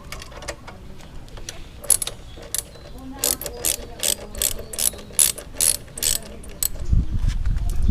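Sharp metallic clicks of hand tools working on a motorcycle exhaust muffler while its DB killer is taken out, coming in a run of about two a second in the middle, then a low rumble near the end.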